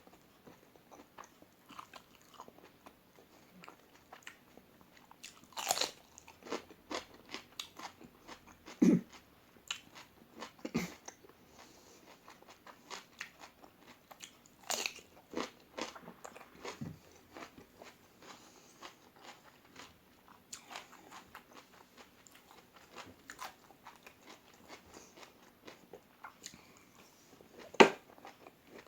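Close-miked mouth sounds of eating crispy fried omelette: steady chewing and crunching with many small crackles. A few sharper, louder crunches or clicks stand out, the loudest near the end.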